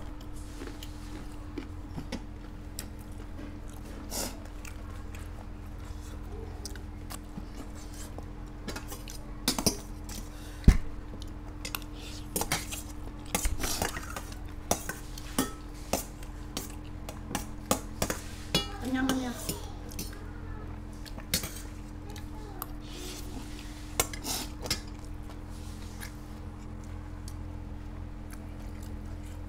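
Spoons and forks clinking and scraping against plates and a metal bowl during a meal, in many scattered sharp clinks, over a steady low hum.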